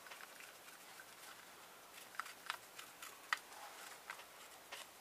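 Faint, scattered clicks and light taps of a screwdriver and plastic parts as a hair straightener's plastic housing is handled and pried apart, a few sharp ticks in the second half.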